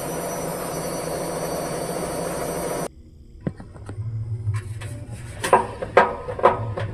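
Godrej front-load washing machine making an abnormal running noise: first a steady whir and hiss. After about three seconds this gives way to a low hum with irregular knocking and rattling clunks, which come louder and more often toward the end.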